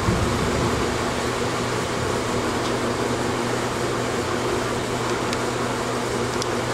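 Steady hum and air rush of a running fan or air-conditioning unit, with a few faint light clicks of small metal parts being handled.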